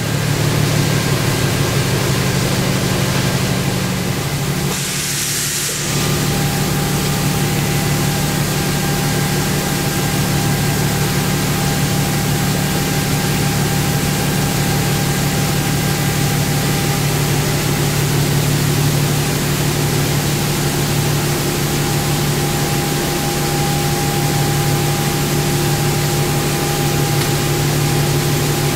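Steady hum and hiss of a powered-up CNC turning center, with its low drone joined by a faint higher whine. A short burst of hiss comes about five seconds in.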